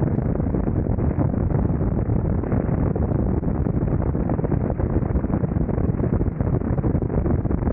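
Steady wind rush over the camera microphone on a Kawasaki Vulcan 900 V-twin cruiser riding at about 65–70 mph, mixed with the motorcycle's engine and road noise.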